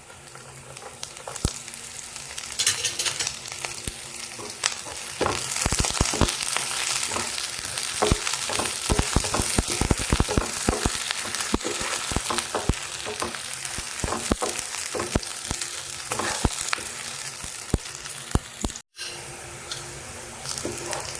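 Chopped green chillies, garlic and ginger sizzling in hot oil in a pan as they are stirred, with a steady hiss and frequent sharp ticks and taps of the stirring.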